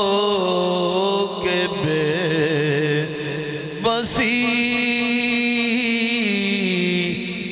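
Man singing an Urdu naat (devotional poem in praise of the Prophet) into a microphone. He draws out long, held notes in a wavering, ornamented melody, with a short break for breath about four seconds in.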